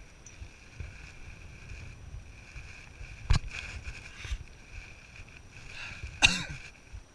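A hiker's footsteps on a rocky trail, heard as soft, regular low thumps. A sharp knock comes about three seconds in and a louder knock near the end.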